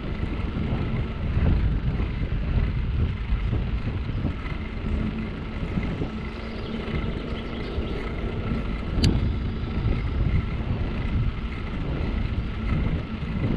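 Wind noise on a GoPro's microphone on a moving bicycle, over the rolling of its tyres on an asphalt cycle path, with a faint steady hum underneath. A single sharp click about nine seconds in.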